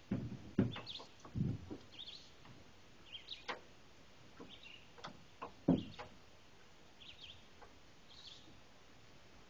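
Small birds chirping, short high calls about once a second, with several dull knocks and thumps mixed in, the loudest about six seconds in.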